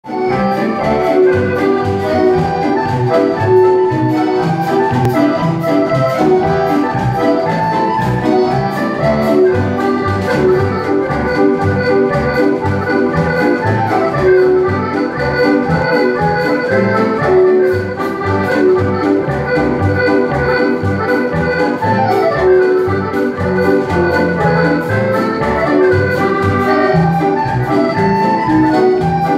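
Accordions playing a dance tune in a steady rhythm, a regular bass beat under the reedy melody.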